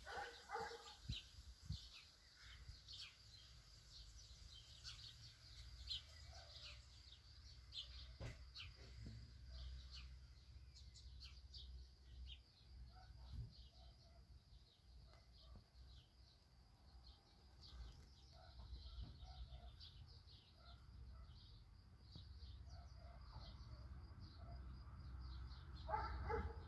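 Faint, thin, high bird chirps, short calls coming irregularly and at times several a second, over a low rumble.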